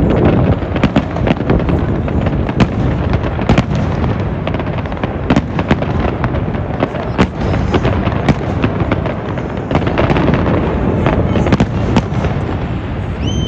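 Aerial fireworks display: many sharp shell bangs at irregular intervals over a continuous low rumble of bursts.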